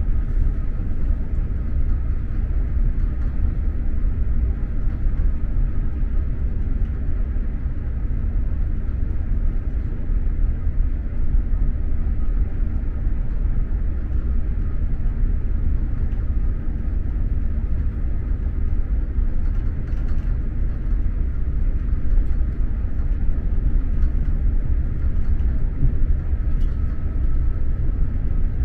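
SJ X2000 high-speed electric train running at speed, heard from inside a passenger car: a steady low rumble.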